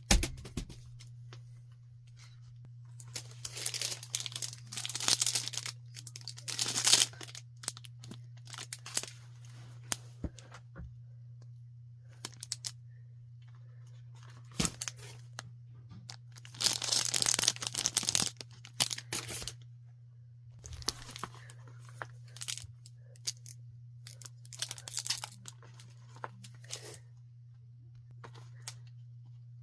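Thin material, paper or packaging, being torn and crinkled by hand in irregular bursts of one to three seconds, the longest around the middle. A steady low electrical hum runs underneath.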